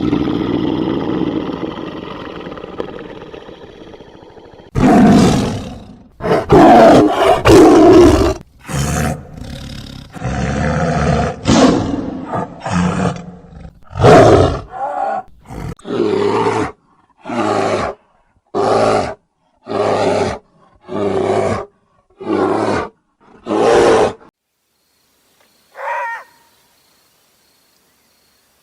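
Loud animal calls: a long call that fades away over about four seconds, a run of irregular calls, then about eight short calls spaced roughly a second apart, and one last short call near the end.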